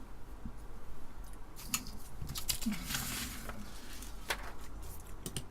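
Small sharp clicks and a brief rustle from handling small electronic parts and tools on a workbench, over a faint steady hum.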